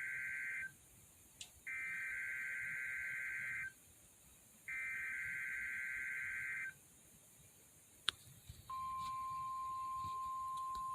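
NOAA Weather Radio Emergency Alert System weekly test: the end of one SAME header data burst, then two more, each a warbling electronic screech about two seconds long with about a second's gap between. After a click, the steady single-pitch warning alarm tone begins near the end.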